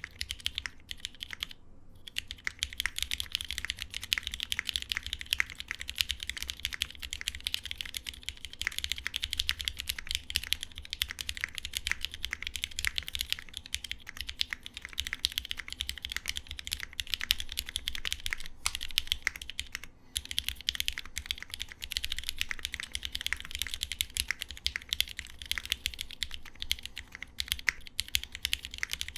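Fast, continuous typing on a Geonworks F1-69 custom mechanical keyboard with lubed Cherry MX Black linear switches on an aluminum plate and JTK Tianwen keycaps: a dense run of keystroke clacks. Typing pauses briefly about two seconds in and again about two-thirds of the way through.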